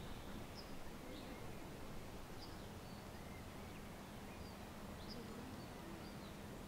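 Quiet outdoor ambience: a faint steady hiss with short, high bird chirps scattered through it, about one every second.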